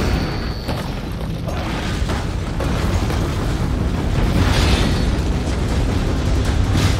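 Action-film fight sound mix: a continuous deep rumble with booms and impact blasts, and music underneath.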